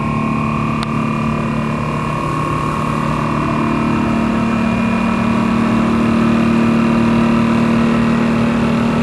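Whip Mix VPMmini vacuum mixer running a timed mixing cycle: its built-in oil-less vacuum pump and paddle drive motor make a steady mechanical hum with several held tones. The lid O-ring has just been reseated, which should have restored vacuum to the bowl.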